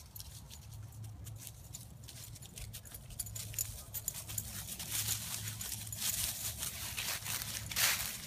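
Rustling and crunching of dry fallen leaves on grass under running feet and paws, a quick irregular crackle that grows louder and denser in the second half.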